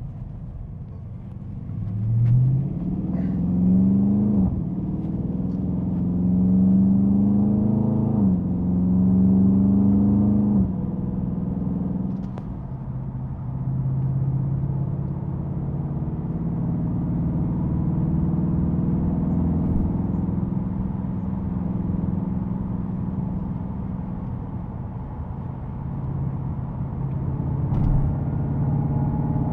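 Dodge Scat Pack's 6.4-litre Hemi V8 accelerating through the gears: three rising pulls, each cut off by a sudden drop in pitch at the upshift, then settling into a steady cruise.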